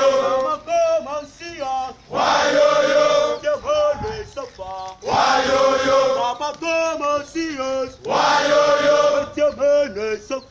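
Men's call-and-response drill chant. A large group of male voices chants a line in unison, and a single voice answers with a line of its own. The exchange repeats about every three seconds, and the group comes in four times.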